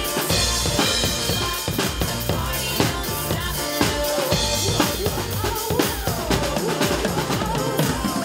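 Acoustic drum kit played live in a steady beat: kick drum, snare and cymbal hits, over a recorded backing track with pitched music underneath.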